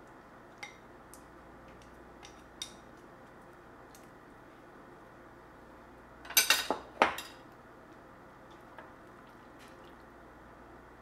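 Utensils clinking against a bowl and the pot while soup is dished out: a few light taps, then a quick run of louder clinks just past the middle.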